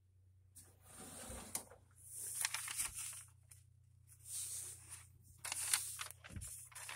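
Irregular rustling and scraping handling noise in bursts, starting about half a second in, with a faint steady low hum underneath.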